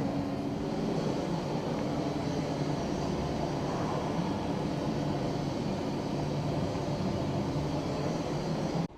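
TIG welding torch laying a bead on a titanium exhaust pipe: the arc and argon flow make a steady hiss that stops suddenly near the end.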